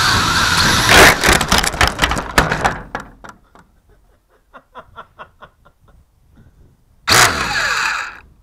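Small WLtoys quadcopter's motors and propellers running, heard through its own onboard camera. About a second in, a loud crash as it hits the roof, with about two seconds of clattering knocks that die away. A run of light ticks follows, and near the end the motors spin up again for about a second and wind down with a falling whine.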